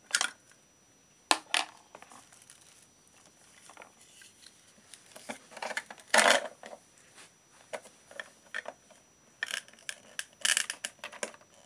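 Plastic toy-kitchen pieces clicking and clattering: a plastic spoon stirring and knocking in a small plastic saucepan of toy food. Scattered light knocks, with a louder clatter about six seconds in and another run of clicks near the end.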